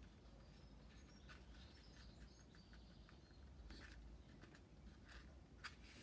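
Near silence with a few faint, soft rustles of paper cardstock being folded and pressed flat by hand.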